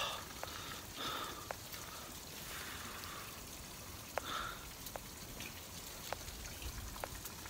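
Quiet outdoor ambience: a faint even hiss with scattered small, irregular clicks and a couple of soft brief noises.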